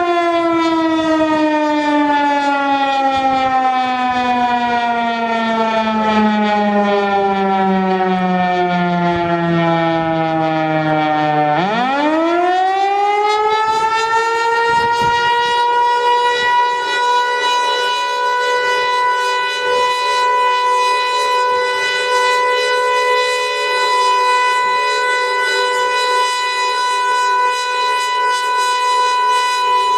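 Outdoor warning siren sounding during a test: its tone falls slowly in pitch for about eleven seconds, then rises sharply and holds a steady high wail.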